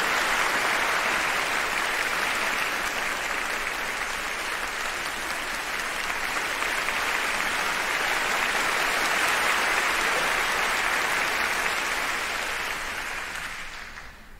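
Audience applauding steadily in a concert hall, the applause dying away near the end.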